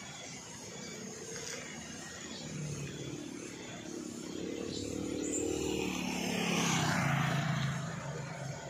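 Heavily loaded Isuzu light truck's diesel engine pulling at low speed, growing louder as it approaches and loudest about seven seconds in, with a motor scooter passing close near the end.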